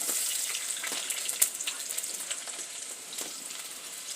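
Chopped onions sizzling in hot cooking fat in a sufuria as they begin to brown, the frying hiss fading gradually, with a sharp tick about a second and a half in.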